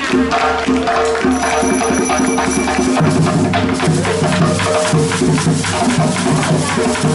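Music with busy, rhythmic percussion over a held bass line that moves to a new note about three seconds in.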